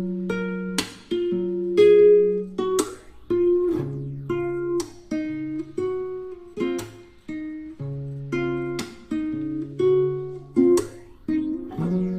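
Background music: acoustic guitar playing plucked notes and strums over a bass line, at a moderate tempo.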